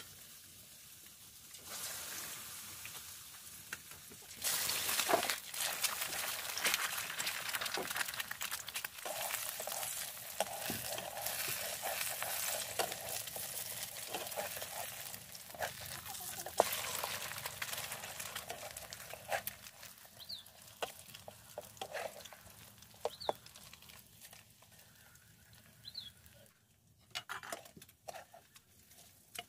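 Eggs frying in hot oil in a steel wok, sizzling, with a metal spatula scraping and tapping against the pan. The sizzle starts suddenly a few seconds in and dies down over the last several seconds.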